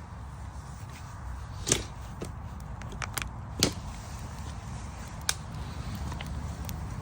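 A handful of sharp knocks at uneven intervals, the loudest about two seconds in and again near the middle, over a steady low rumble.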